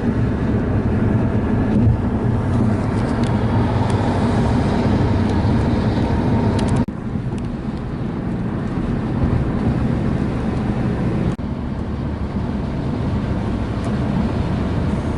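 Steady road and engine noise inside a moving car at highway speed, a low rumble with a constant hum. The level drops abruptly about seven seconds in and shifts again near eleven seconds, as one stretch of driving gives way to another.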